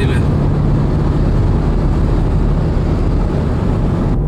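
Steady road noise inside a moving car: tyre rumble and engine, heaviest in the bass, at open-road speed. The sound changes abruptly near the end.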